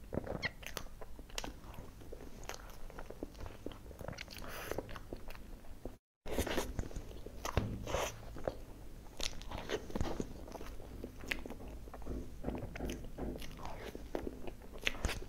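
Close-miked eating of cream cake: wet chewing and lip smacking, with short clicks of a metal fork against the cake board. A brief break to silence about six seconds in.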